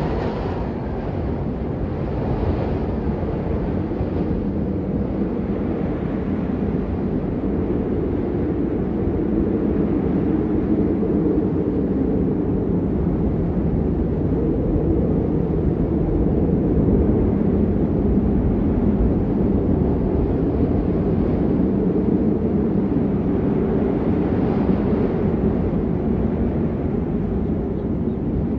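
Blizzard wind howling steadily in a deep, dense rush, swelling slightly in the middle, with a few higher gusts near the start and near the end.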